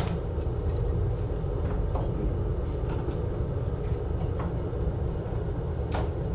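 Steady low rumbling hum of bench equipment running, with a few faint light clicks.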